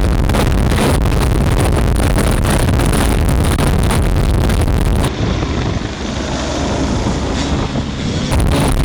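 Loud engine noise buried under heavy wind buffeting on the microphone from a helicopter's rotor downwash. About five seconds in the sound turns duller and a little quieter for about three seconds, then comes back.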